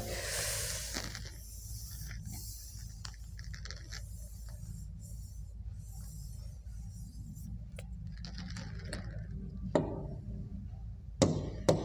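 Eraser rubbing across a writing board for about a second and a half, then fainter scraping over a steady low hum, with a couple of short clicks near the end.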